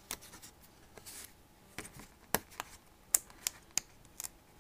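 Scattered sharp clicks and taps at irregular intervals: fingers handling a cardstock cutout and pressing foam adhesive pop dots onto it.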